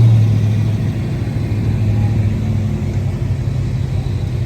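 Car engine running with a steady low drone that fades about a second and a half in, over continuous road rumble.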